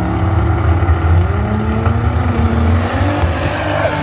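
Turbocharged drag race car engines at high power, their pitch rising as they accelerate.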